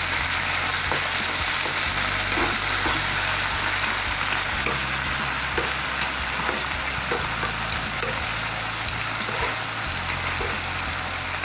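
Chicken drumsticks sizzling steadily in hot oil in a nonstick frying pan as they brown, with occasional light knocks as the pieces are turned with metal tongs.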